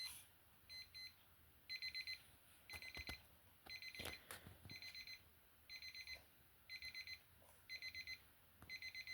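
Electronic beeping of an Equity digital alarm clock's alarm: a quick group of about four high beeps repeated roughly once a second. A few handling clicks and knocks come from the clock being held.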